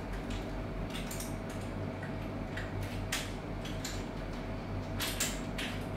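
Small clicks and rustles of a padlock and its plastic lockout tag being handled and fitted onto a steel lockout hasp, a handful of short sounds over a steady low hum.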